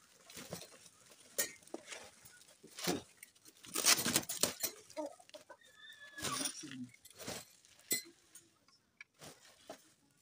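Bubble wrap and plastic packaging rustling and crinkling in irregular sharp bursts, loudest about four seconds in, as the parts of a parabolic grid antenna are unwrapped by hand. A chicken clucks now and then in the background.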